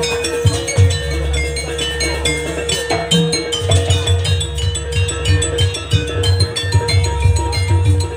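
Jaranan gamelan music: rapid metallophone strikes over a steady held high tone, with drum hits that settle into a fast steady low beat about three and a half seconds in.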